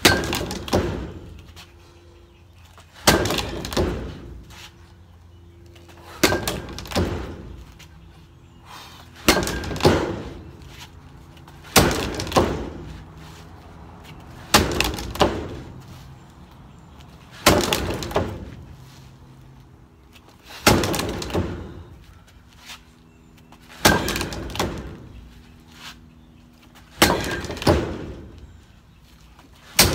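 Bat hitting the tethered ball of a Hit-A-Way swing trainer about every three seconds, around ten swings. Each sharp crack is followed under a second later by a second knock.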